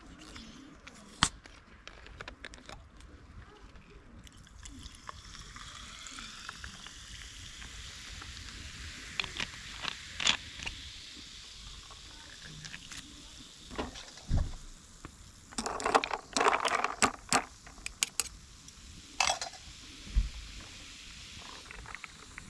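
A steady hiss that starts abruptly about four seconds in, with scattered clicks and knocks over it and a dense flurry of them a little past the middle.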